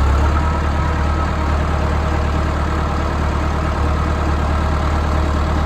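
Massey Ferguson 175 tractor engine running steadily at idle, a constant deep hum.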